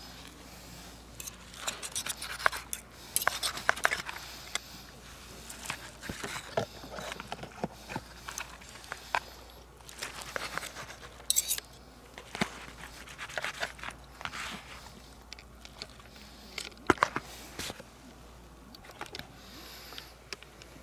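Fork and knife cutting food in a disposable takeout clamshell container, making irregular scrapes, taps and clicks against the container.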